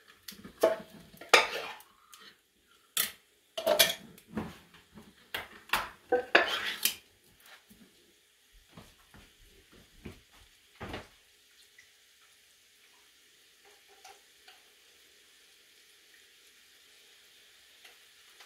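Metal kitchenware clanking and clattering: cans of red beans and a metal pot being handled and knocked together, in a quick run of sharp knocks over the first eleven seconds or so. After that only a faint sizzle from the frying pan remains.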